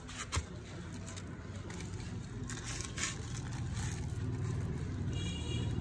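A steady low rumble that grows louder toward the end, with a few light clicks of small metal parts being handled near the start and a brief high-pitched squeal about five seconds in.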